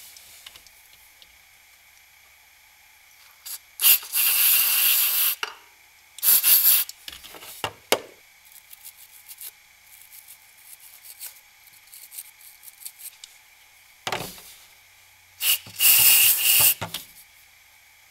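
CRC electronic contact cleaner sprayed from an aerosol can onto an electrical connector in three hissing bursts, the first and last over a second long. In between, a soft brush scrubs faintly at the connector's terminals to clear corrosion.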